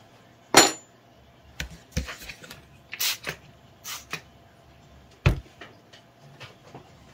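Workbench handling sounds: a sharp click with a brief metallic ring near the start, then a few short hissing spritzes from a trigger spray bottle misting water onto the clay box around three and four seconds in, and a dull knock a little after five seconds.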